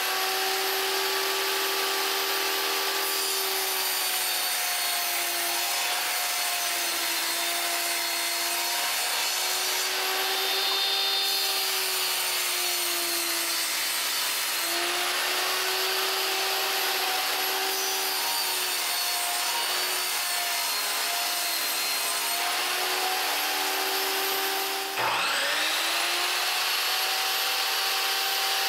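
Table saw running and cutting wood: a steady whine whose pitch wavers and dips as the blade takes the cuts. Near the end the whine drops sharply and winds back up to speed.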